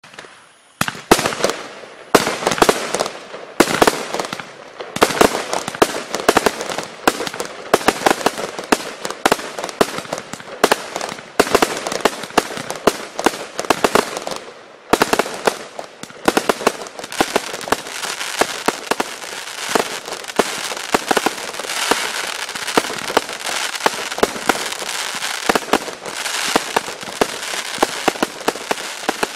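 Tank Buster 100-shot firework cake firing: a rapid barrage of shots launching and bursting with sharp bangs and crackle, beginning about a second in. After a short lull around the middle, it becomes a denser, steadier crackling volley.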